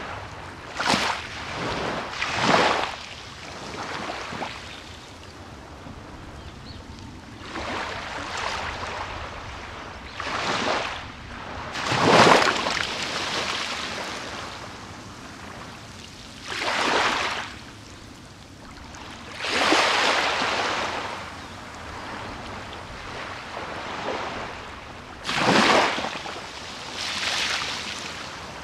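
Small sea waves breaking and washing up a beach, about ten separate washes that each swell and fade over a second or two, at uneven intervals over a steady background hiss of surf.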